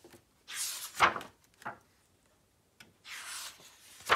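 Pages of a hardcover picture book being turned by hand: two papery swishes, with a sharp tap about a second in and another near the end.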